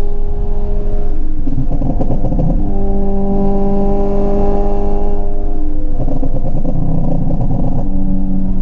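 Honda Civic EP3 Type R's K20 four-cylinder engine and exhaust under load, holding a steady, slowly falling note that twice turns rough and rattly for a second or two.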